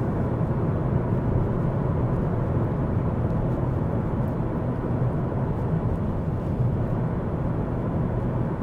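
Steady road and engine noise inside a Ford Focus's cabin while it drives along, a low, even rumble.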